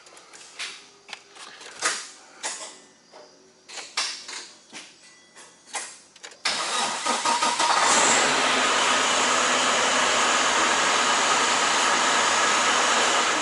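A few scattered clicks and knocks, then about halfway through a semi truck's diesel engine cranks and fires, settling into a steady idle. The engine starts on the starter that has just been repaired.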